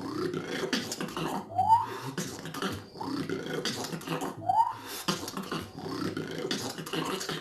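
Beatboxing: a fast run of mouth-made drum hits and clicks, with a short rising vocal swoop that comes back about every three seconds.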